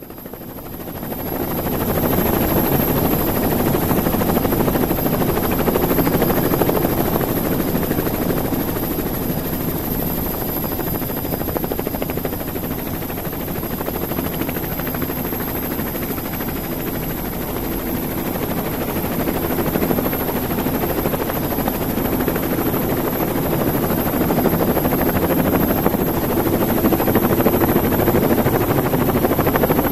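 Radio-controlled helicopter's motor and rotors heard from its onboard camera, spinning up over the first couple of seconds as it lifts off the road, then a steady whir in flight, with a faint high whine throughout.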